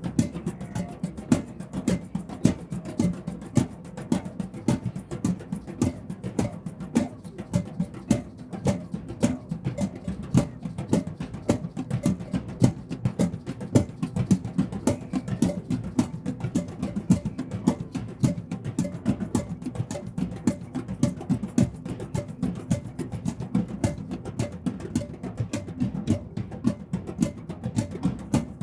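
Drum circle: many hand drums struck together in a dense, steady rhythm.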